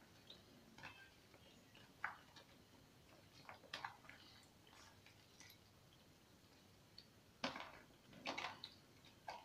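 Boiled penne being tipped by hand from a plastic tub into thick white sauce in a pot: faint, scattered soft taps and clicks, with a few louder ones near the end.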